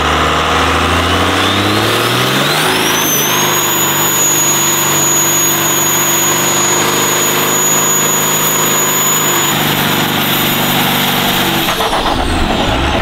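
Turbocharged Cummins diesel in a Mustang, a worn high-mileage truck engine, revving up over about three seconds into a burnout, its turbo whistle rising with the revs. It holds at high revs for several seconds, eases slightly, then drops off near the end.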